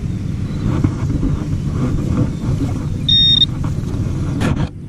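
Low steady rumble, and about three seconds in a short, high electronic beep from a metal detector sounding on the target in the dig hole.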